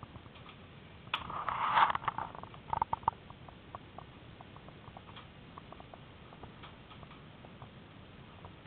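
Wooden mill machinery in a windmill cap clattering: a rattling burst about a second in lasting about a second, then a quick run of sharp clicks, then sparse faint ticks.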